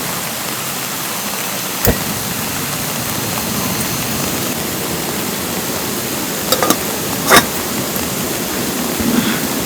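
Steady rain mixed with the rush of a valley stream, with a few sharp taps about two seconds in and a small cluster of them around seven seconds in.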